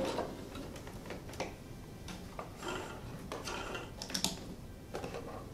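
Small scattered clicks and brief rustles from handling a stopped sewing machine and the flannel pyjama leg, with a sharper click a little after four seconds in.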